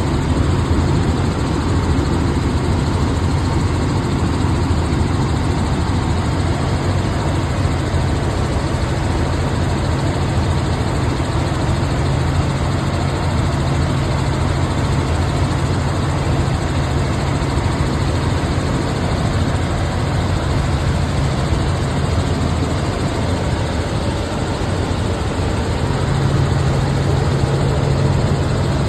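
Helicopter in flight: a steady drone of engine and rotor noise with a strong low hum, heard from on board.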